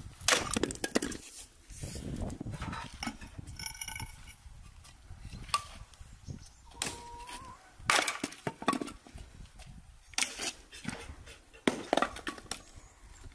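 Axe splitting firewood on a log chopping block: several sharp chops into the wood, a few seconds apart, the hardest coming in quick succession over the last few seconds.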